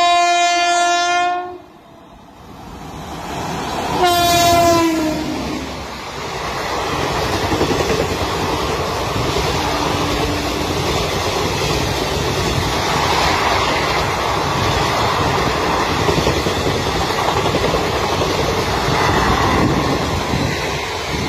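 Locomotive air horn sounding two blasts, the second sliding down in pitch as the locomotive passes. Then the steady rumble and wheel clatter of the passenger coaches running past at speed.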